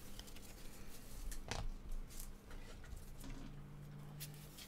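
A few faint clicks and taps over quiet room tone: one about a second and a half in, another around two seconds, and one near the end.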